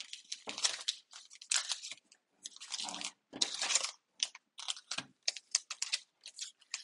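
Crunching and rustling of the boxes' cardboard and plastic packaging being handled, in about a dozen irregular short bursts.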